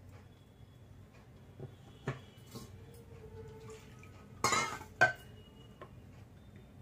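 A spoon clinking and scraping against a bowl as idli batter is stirred, with light taps early on giving way to a loud scraping clatter and a sharp clink about four and a half to five seconds in as the dishes are handled.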